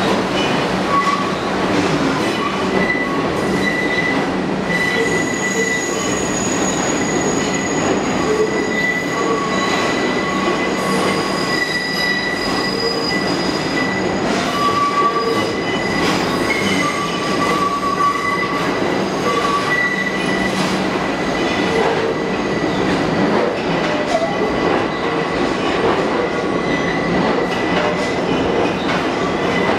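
R62A subway train's steel wheels squealing as it creeps around the tight South Ferry loop curve, high steady squeal tones coming and going over the continuous running rumble, with occasional clacks from the rail joints.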